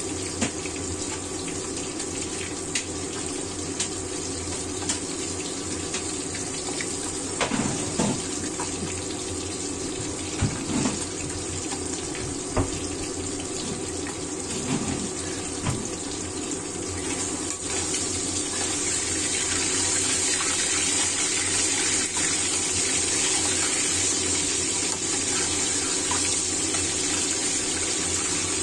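Mullet frying in hot oil in a wok: steady sizzling with scattered sharp pops, growing louder and brighter a little past halfway, over a faint steady hum.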